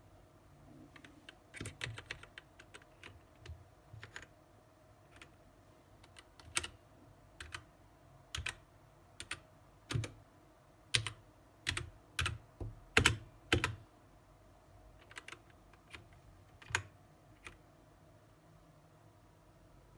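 Keys of a BlitzWolf BW-KB1 mechanical keyboard with Gateron switches being pressed: irregular clacks, singly and in short flurries, loudest and densest around the middle and thinning out near the end.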